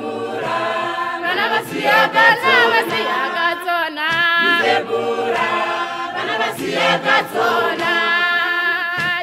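A choir singing a cappella, several voices together.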